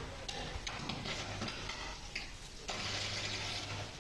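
Rainwater pouring and splashing down in heavy rain, a steady rushing hiss that thins out briefly a little past halfway and then comes back.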